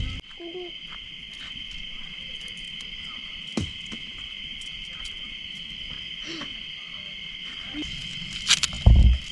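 Steady high-pitched chorus of crickets, with scattered small clicks and, near the end, a few louder knocks and a thud.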